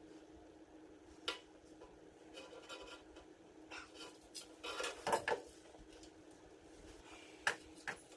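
Small metal parts and tools clinking and rattling as they are handled: a sharp clink about a second in, a cluster of clatters around four to five seconds in, and another clink near the end, over a faint steady hum.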